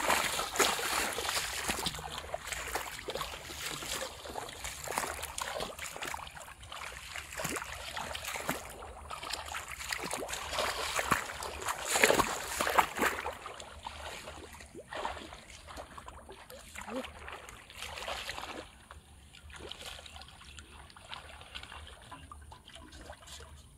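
Shallow muddy pond water splashing and sloshing as a person wades through it and gropes with his hands for fish. The splashing is loudest a little after halfway and quieter near the end.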